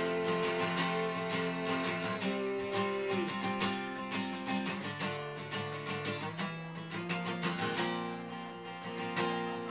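Solo acoustic guitar strummed in a steady rhythm through a chord progression, an instrumental break between sung lines of a punk song.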